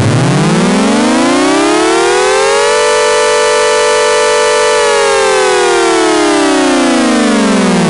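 Electromechanical outdoor warning siren (tornado siren) in one wind-up cycle: it rises in pitch for about the first three seconds, holds a steady wail for about two seconds, then winds down in a long falling glide.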